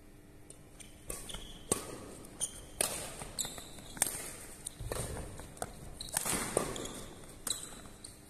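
Badminton doubles rally: sharp racket strikes on the shuttlecock about once a second, starting about a second in, mixed with players' footsteps and shoe squeaks on the court floor.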